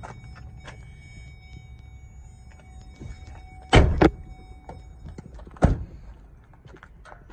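Pickup truck doors shutting on a 2012 Chevrolet Silverado 2500 extended cab: a heavy doubled thunk about four seconds in, then a second thunk nearly two seconds later.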